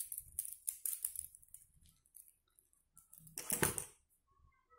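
Small clicks and taps of gel polish bottles and plastic pieces being handled on a table, then a louder, longer rattle about three and a half seconds in as a fan of plastic nail swatch tips is handled.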